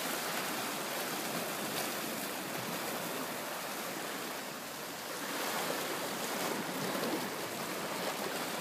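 Small sea waves washing and lapping over shoreline rocks, a steady wash that swells a little louder a few seconds in.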